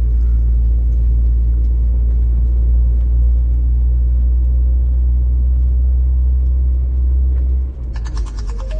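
Steady low drone of a lorry's engine and road noise heard inside the cab while driving slowly. Music comes in near the end.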